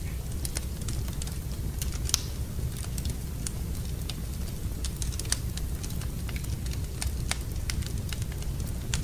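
Wood fire burning in a fireplace, crackling with scattered sharp pops over a steady low rumble.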